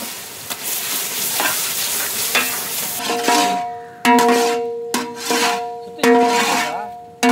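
A long ladle stirs and scrapes mutton and ground masala paste frying in ghee in a large iron kadai, with a steady sizzle. About three seconds in, background music of sharply struck, held notes starts over the stirring and repeats about once a second.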